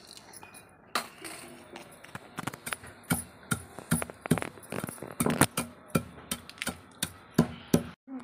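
Wooden pestle pounding coriander seeds in a stone mortar: a run of sharp, uneven knocks, about three a second, starting about a second in.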